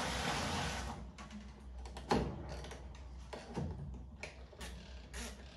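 Knocks and clicks of a washing machine's plastic lid and parts being handled, after a rush of water being poured in for about a second at the start.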